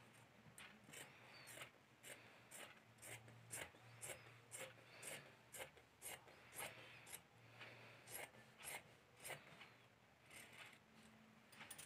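Fabric scissors snipping through blouse cloth, a faint cut about twice a second with a couple of short pauses, as a blouse pattern is cut out along its chalk lines.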